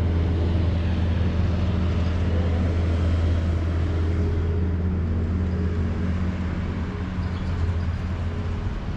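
Heavy earthmoving equipment's diesel engine running at a steady speed: a constant low hum with a few steady higher tones above it.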